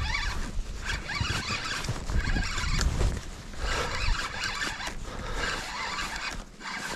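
Fishing reel being cranked steadily during a lure retrieve, a fluttering, zipper-like whir, over low wind rumble on the microphone.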